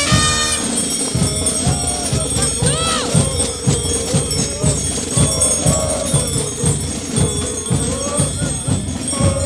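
Carnival brass band playing a Gille dance tune over a steady drum beat, mixed with the jingling of the Gilles' belt bells as they dance.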